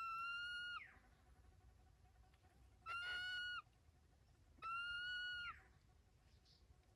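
A bird calling three times. Each call is drawn out and clear, holds a steady pitch, then drops sharply at the end.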